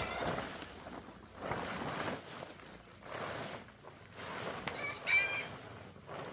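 Chickens clucking, with one clear call about five seconds in, between short bursts of noise.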